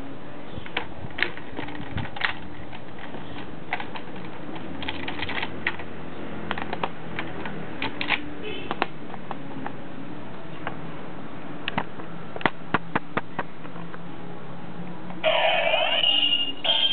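Scattered plastic clicks and snaps from a Kamen Rider OOO DX transformation belt toy being handled. About fifteen seconds in, the belt's small speaker starts a loud electronic sound effect.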